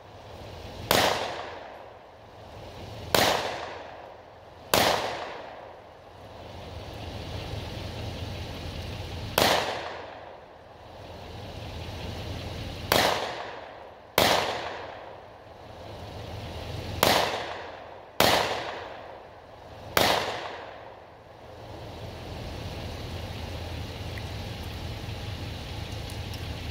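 .40 S&W semi-automatic pistol fired nine times at uneven intervals over about twenty seconds, each sharp shot trailed by an echo that dies away over a second or so; then the firing stops.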